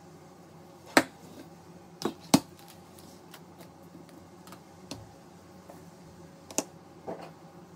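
Small objects being handled and set down on a tabletop by gloved hands: a handful of sharp clicks and taps, the loudest about a second in and a close pair just after two seconds, with a few lighter ones later.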